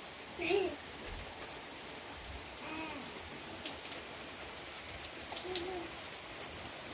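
Steady rain falling, with sharp drops striking close by. Three short pitched calls come through it: about half a second in, near three seconds, and near five and a half seconds.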